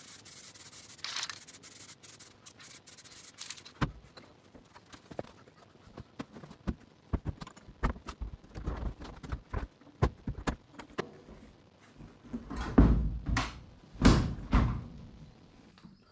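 Classic Mini's steel door being refitted and bolted back on: a run of irregular metal clunks, knocks and scrapes, with the heaviest thuds about two thirds through and near the end. A steady hiss fills the first few seconds.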